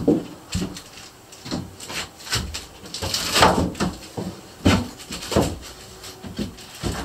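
Wooden boards knocking and clunking, about one knock a second at an uneven pace, with a longer scrape near the middle, as siding boards are handled and fitted.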